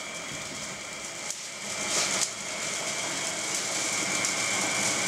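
Pearl-separating spin machine running: a steady high hum over a rushing, sloshing wash of seawater and oyster tissue spinning in the barrel, swelling briefly about two seconds in.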